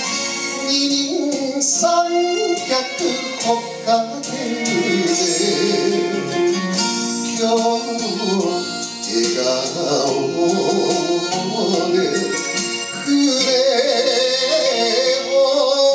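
A man singing a Japanese song into a handheld microphone over instrumental accompaniment, with vibrato on the held notes.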